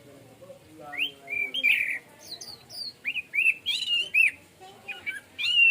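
Orange-headed thrush singing: a run of varied clear whistled phrases, short arched and rising notes in quick succession, starting about a second in.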